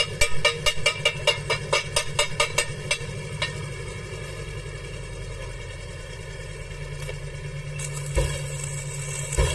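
A hammer knocks on the welded joint of a 1-inch round steel bar, about four sharp strikes a second, stopping about three seconds in. A steady low hum follows, and near the end a stick-welding arc strikes and begins to crackle, with two thumps.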